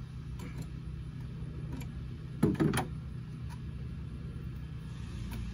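Light clicks and clunks of a car battery and its fittings being put back in an engine bay, with two louder knocks close together about two and a half seconds in, over a steady low hum.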